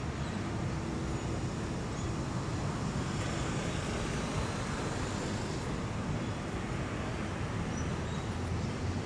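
Steady outdoor background rumble and hiss with no distinct events.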